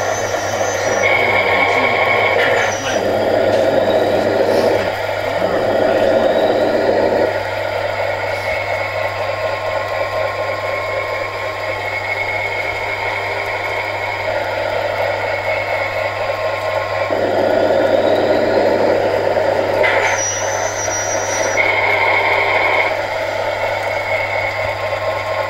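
Sound module of a radio-controlled Kenworth truck playing a diesel engine sound through its small onboard speaker over a steady hum. The engine sound swells and eases off twice as it drives, and a held high tone comes and goes three times.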